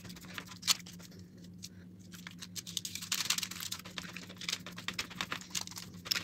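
A hand pressing and patting a sheet of raw dough spread over baking paper in a metal tray: faint, irregular soft pats, taps and paper crinkles, growing busier about halfway through, over a low steady hum.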